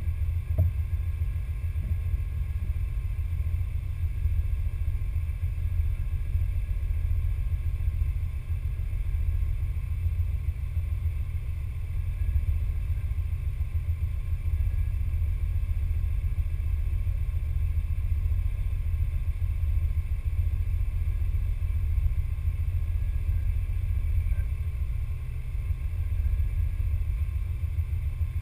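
Steady low rumble of wind buffeting the microphone of the camera mounted on the RC crawler.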